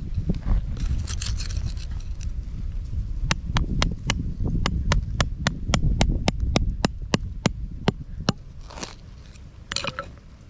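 Hand tool chipping into a hard clay bank to loosen quartz points: some scraping, then a quick run of about eighteen sharp strikes, three or four a second, and a couple more scrapes near the end.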